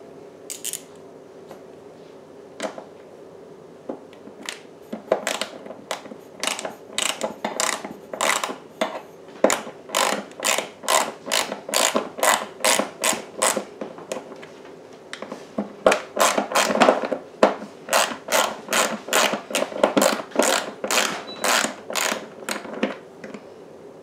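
Ratchet wrench with an extension and quarter-inch socket clicking quickly, about three clicks a second, in two long runs with a short pause between: loosening the screws that hold the refrigerator's dispenser chute panel.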